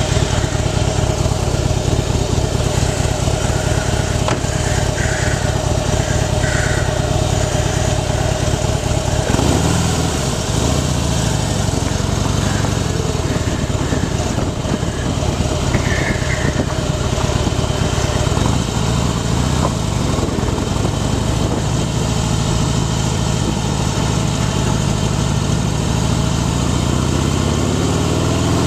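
Harley-Davidson Night Train's V-twin, built up with a Screamin' Eagle 103-cubic-inch Stage II big-bore kit, running as the motorcycle is ridden, with wind buffeting the microphone. The engine note changes about ten seconds in and starts to rise near the end.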